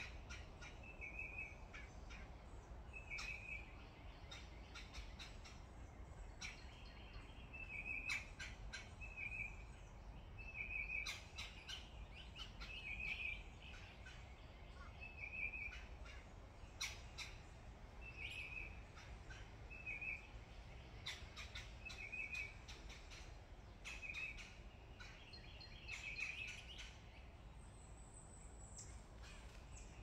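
Wild birds singing in the trees: one bird repeats a short, high phrase every second or two, over scattered sharp clicks. A thin, high buzz comes in near the end.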